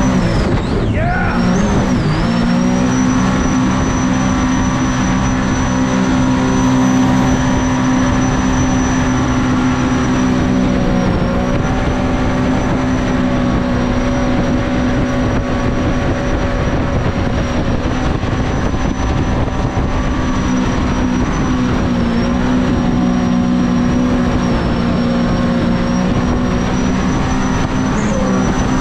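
Mini jet boat's engine running hard at a steady cruising speed, with a steady high whine over it; the pitch dips briefly about a second in and comes back up.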